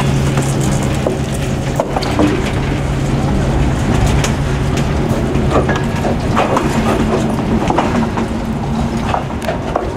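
Diesel locomotive engine running with a steady low hum, mixed with scattered crunches and knocks on the gravel ballast.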